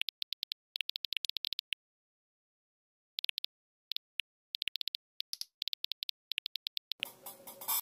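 Phone on-screen keyboard key-press clicks in quick runs as text is typed, with short pauses between runs. Near the end, a louder noisy burst lasting under a second.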